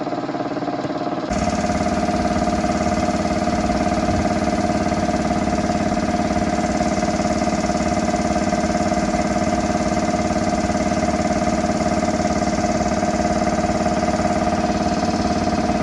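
A machine running steadily at one constant pitch, starting abruptly about a second in.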